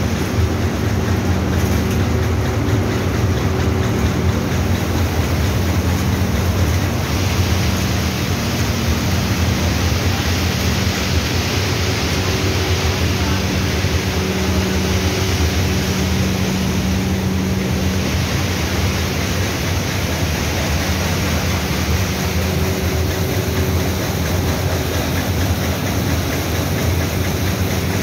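Raisin processing machinery running: conveyors, a grading machine and an optical colour sorter give a steady, loud mechanical hum with a low drone under a hiss.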